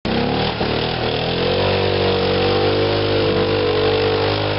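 ATV engine revving up over the first second or so, then holding steady under load as the quad drives through deep mud ruts.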